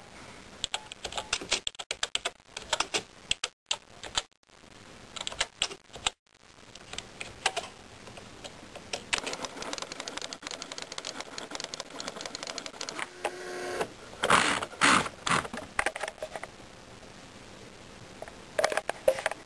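Smith Corona Graphtext 90 pen-plotter typewriter at work: irregular mechanical clicks for the first few seconds, then a steady whirring of its pen mechanism from about six seconds in. A burst of loud clacks comes about two thirds of the way through.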